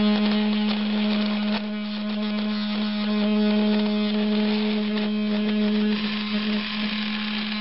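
Small 12-volt DC motor of a homemade router, run off a four-cell LiPo, spinning with a steady, even hum; its pitch wavers a little near the end.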